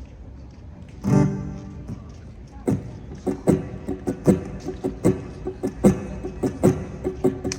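Acoustic guitar: one chord strummed about a second in, then a run of short, sharp percussive strokes, two to three a second, starting a song intro.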